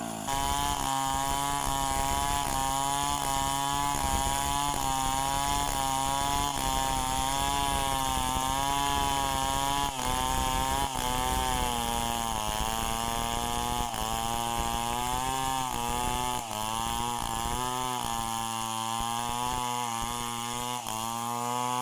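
Two-stroke chainsaw running at high revs, its engine note wavering up and down, with a few brief dips in pitch in the second half.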